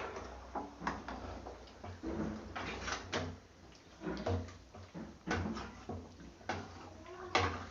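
Irregular clatter of a utensil knocking and scraping against a cooking pot, as the chicken korma is stirred after water goes in.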